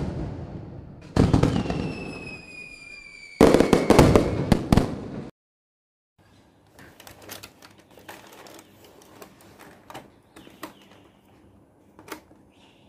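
Fireworks sound effect: three loud bursts, each dying away, with a falling whistle between them and crackling after the last. After a short silence come faint clicks and rustling as hands handle a cardboard camera box.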